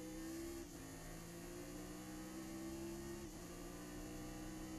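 Chevrolet Nova race car's engine pulling under full acceleration, heard from inside the cockpit. Its tone climbs steadily, with brief breaks about half a second in and again after three seconds.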